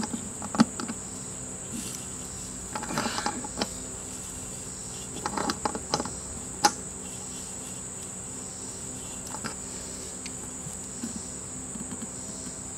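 Hands and channel-lock pliers working the drain nut on a stainless-steel bowl: a few scrapes and sharp metallic clicks, the loudest about half a second in and near six and a half seconds. Under it, a steady high chirring of insects.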